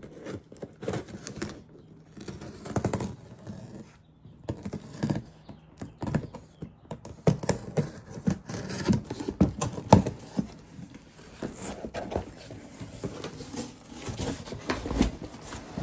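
Packing tape on a cardboard box being slit and torn open, then the cardboard flaps pulled back: irregular scraping, tearing and crinkling with scattered sharp clicks.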